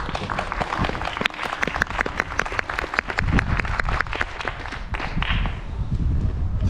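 Audience applauding, individual hand claps distinct, thinning out and dying away near the end.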